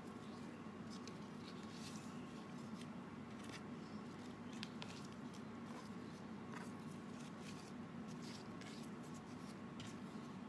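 Faint, scattered rustles and small crackles of banana leaf strips being handled and woven by hand, over a steady low hum.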